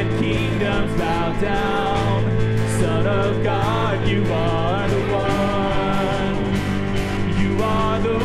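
Live worship band playing a contemporary worship song: a woman singing lead over acoustic guitar and electric bass, with a steady drum beat.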